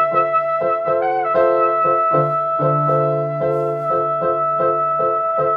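Trumpet holding one long sustained note, with a brief wobble about a second in, over a piano accompaniment of steadily repeated chords and a bass line; the trumpet note stops at the end.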